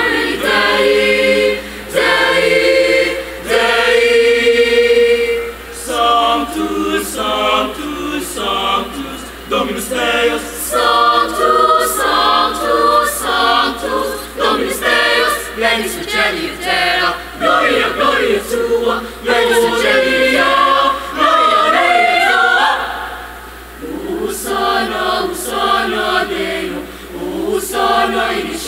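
Mixed youth choir of boys and girls singing in several parts, with a short pause about three quarters of the way through before the voices come back in.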